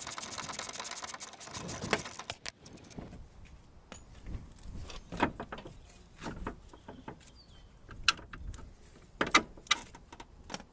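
Socket ratchet clicking rapidly for about two seconds as it spins a 19 mm suspension bolt loose. Scattered metallic clinks and knocks of tools and parts follow.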